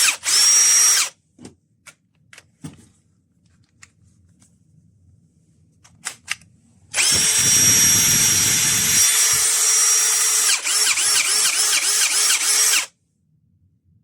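AEG BSB18CBL-0 18-volt cordless drill running. There is a short run at the start, a few clicks, then a steady high motor whine lasting about six seconds, whose speed wavers up and down in quick pulses near the end as the trigger is feathered, before it stops sharply.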